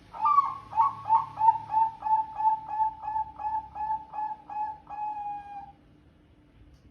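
Bangkok-type perkutut (zebra dove) cooing: a quick run of about fifteen short notes that each dip in pitch, ending about five seconds in on a longer drawn-out note, the long ending prized in song birds.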